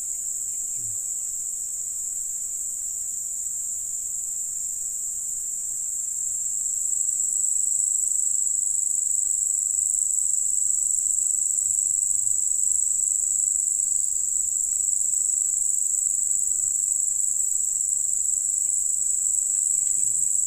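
Insects calling in a steady, high-pitched, unbroken drone that grows louder about seven seconds in.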